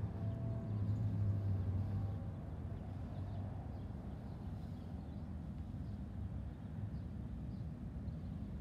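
Road traffic at a street crossing: a vehicle's low engine hum swells over the first couple of seconds and then eases off, over a steady low rumble.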